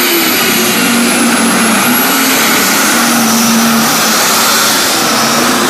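Allis-Chalmers D21 pulling tractor's diesel engine running flat out under load as it drags the sled down the track, loud and steady, with heavy black exhaust smoke marking full power.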